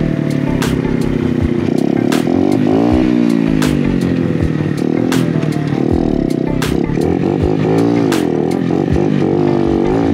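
Motorcycle engine revving up and down repeatedly as the bike is ridden, its pitch rising and falling in long sweeps. Sharp clicks come at even intervals about every second and a half.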